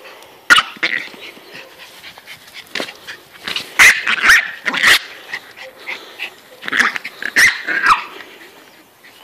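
Pomeranian barking and growling in play while chasing a ball, in short bursts: one about half a second in, a loud cluster around four to five seconds, and another around seven to eight seconds.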